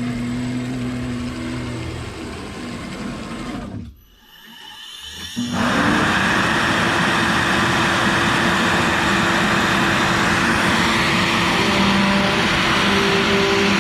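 CNC router's stepper motors whine steadily as the gantry travels, then go briefly quiet about four seconds in. Around five and a half seconds in, the router spindle spins up with a rising tone and then runs loud and steady, ready to V-carve PVC with a 45° V-bit.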